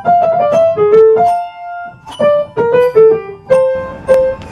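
Keyboard music: a melody of single struck notes, with a short pause partway through.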